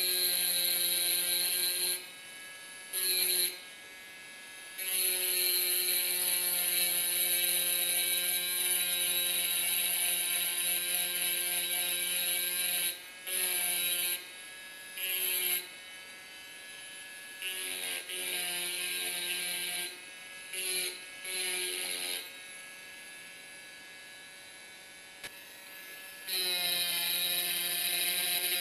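Small corded electric engraving drill with a diamond tip grinding into a drinking glass: a high, buzzing whine that starts and stops in stretches, the longest about eight seconds, as the tip is worked against the glass.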